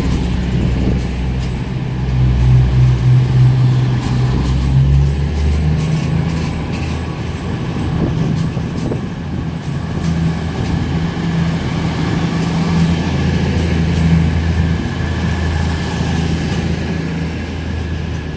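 Class 222 Meridian diesel multiple unit accelerating out of the station past the platform, the underfloor Cummins diesel engines of each car giving a loud, steady low drone that shifts in pitch about six seconds in. A faint higher whine joins in the second half, and the sound thins near the end as the last car clears.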